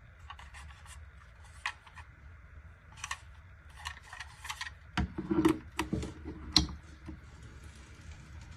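Hands handling small objects: rubbing and scattered light clicks, then a run of louder knocks and taps about five to seven seconds in.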